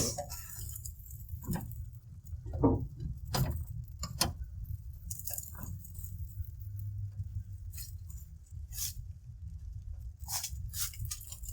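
Scattered light clinks, taps and rustles of metal pans being handled and shifted on a grill, over a low steady rumble.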